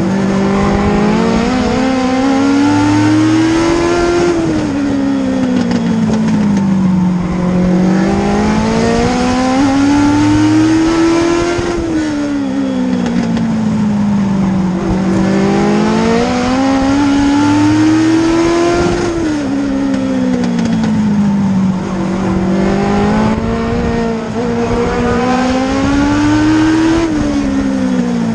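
Race car engine heard from inside the cockpit. Its pitch climbs steadily along each straight and drops quickly into each turn, a cycle that repeats about every seven and a half seconds, four laps in a row.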